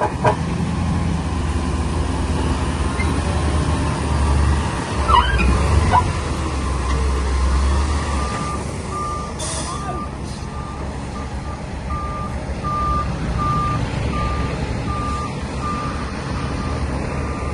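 Heavy earthmoving machine's diesel engine running, with a reversing alarm beeping repeatedly from about eight seconds in. A short hiss sounds near the middle.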